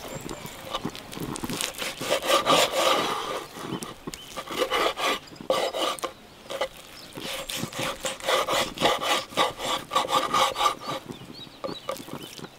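Knife sawing back and forth through raw meat on a wooden cutting board, a quick run of rasping strokes against the board. The strokes come in spells with short pauses.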